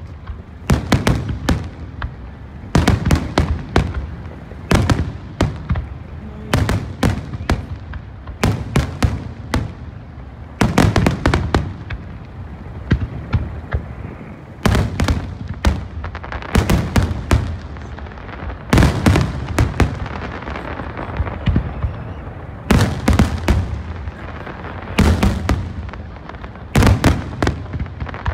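Aerial fireworks display going off without pause: sharp bangs of bursting shells in quick clusters about every two seconds.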